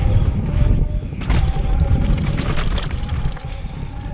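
Mountain bike descending a trail, heard from a camera on the bike: low rumble of tyres and wind on the microphone, then about a second in a sudden burst of rattling and clatter from the bike over rough ground that lasts about two seconds.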